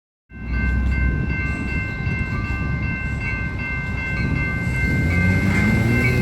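Sound Transit train running by with a heavy low rumble, several steady high ringing tones held over it throughout, and a low pitch rising near the end.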